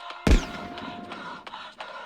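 A single sudden loud bang about a quarter second in, with a deep boom, a falling high ring and a short tail. Under it runs a scratchy rubbing sound that repeats about twice a second.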